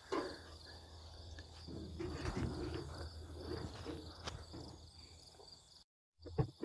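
Faint rustling and light knocks of an aftermarket front fender being lifted and set against the truck's cab, over a steady high chirring of crickets.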